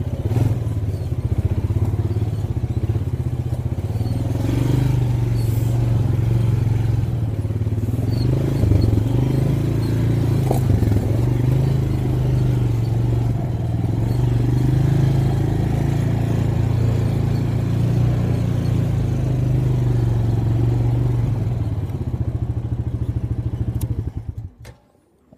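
Four-wheeler (ATV) engine running as it rides a bumpy trail, its pitch rising and falling with the throttle, with a few knocks from the bumps. The engine sound stops suddenly near the end.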